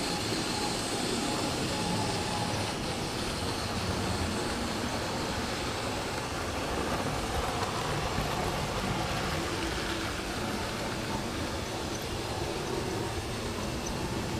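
Analogue model railway train running round sectional track: a steady rattle of small wheels on the rails, heard from a camera riding on a wagon of the moving train.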